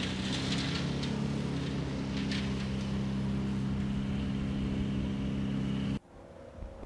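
A motor or engine running steadily with a low, even hum, under a hissing noise. It cuts off suddenly about six seconds in, leaving faint outdoor noise.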